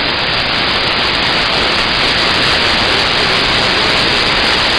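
CB radio receiver hiss with the squelch open: a loud, steady rush of static and no one transmitting on the channel.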